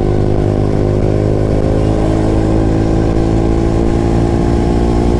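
KTM RC 200's single-cylinder engine running steadily under load at highway speed, with wind and road rush around it. The rider says the bike will not pull above 100 km/h.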